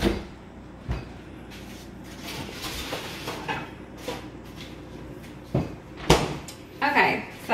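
Refrigerator door being opened and a dish set inside: a few knocks of handling, then the door thumping shut about six seconds in.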